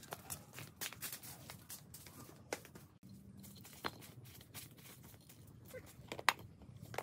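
Scattered soft taps, rustles and small knocks of footsteps in flip-flops and of a small frying pan being handled on a brick stove, with one sharper click near the end.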